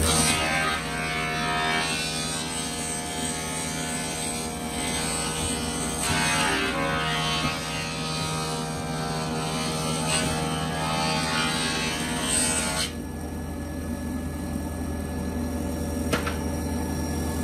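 Mortising machine running steadily while its chisel and bit cut a mortise into a block of wood, a rough chipping noise over the motor hum. The cutting stops about thirteen seconds in, leaving the motor running alone.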